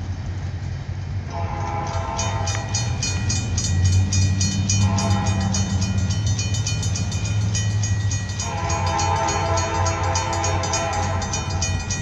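Air horn of an approaching CSX SD70M diesel locomotive: a long blast starting a little over a second in, a short blast about five seconds in, and another long blast from about eight and a half seconds to near the end, over the locomotive's steady low rumble.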